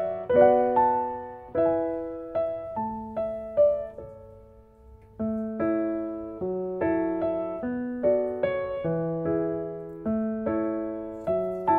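Background piano music: a slow melody of single struck notes that ring and fade, with a brief pause about four seconds in.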